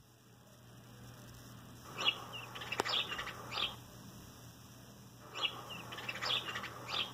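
Recorded sparrow chirps played from an animal-sounds app through a device's small speaker: two bursts of short, high chirps, the first about two seconds in and the second about five and a half seconds in.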